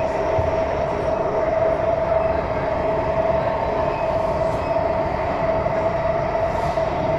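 SMRT metro train running steadily, heard from inside the carriage: continuous rumble of wheels on the track with a steady, unchanging motor whine.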